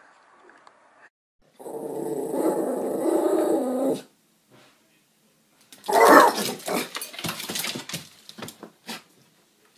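Dog growling for a couple of seconds while it watches a cat through a window. About six seconds in it breaks into a sudden loud outburst with sharp knocks and clatter, which tails off over the next three seconds.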